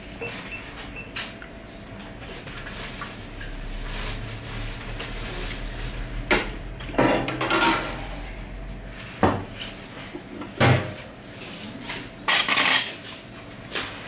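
Dishes clattering at a self-serve soup warmer: a bowl, ladle and lid knocking and clinking in a string of separate sharp hits, most of them in the second half.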